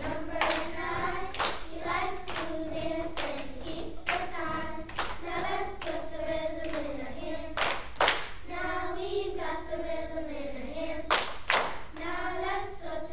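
Children's choir singing together, with sharp hand claps falling roughly once a second on the beat; the loudest claps come about eight and eleven seconds in.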